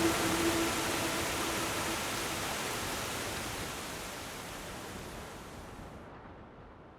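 Steady rushing noise of falling water, fading out slowly and evenly.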